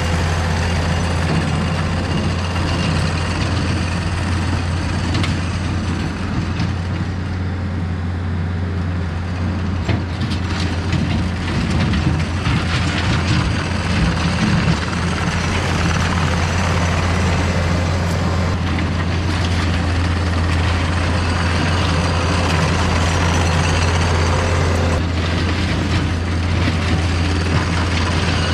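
Takeuchi TL250 compact track loader's diesel engine running steadily with a low drone while the loader pushes and grades dirt and rock with its bucket. Short clanks and rattles from the tracks and bucket come now and then.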